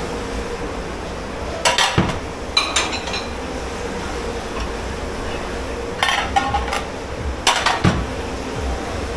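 Crockery and cutlery clattering in a commercial dish pit: several short bursts of knocks and clinks as dishes are handled, over a steady background hum.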